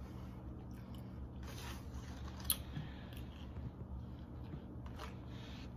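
Faint eating sounds: biting into and chewing a chicken biscuit, with a few short, soft clicks over a low steady room hum.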